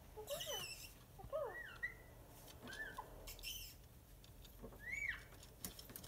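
A parrot giving a string of short squeaky chirps, each rising and then falling in pitch, with a harsher squawk just after the start.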